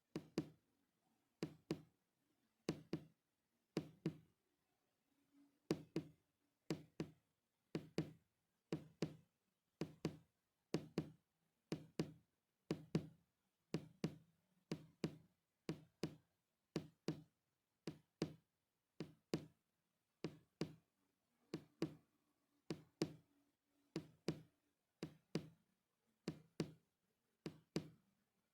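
A steady run of knocks, mostly in close pairs about once a second, each a dull thud with a sharp click on top.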